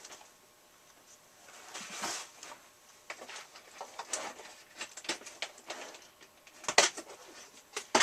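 Rummaging through small loose screws and parts: scattered clicks and light rattles of small metal pieces, with two louder clatters near the end.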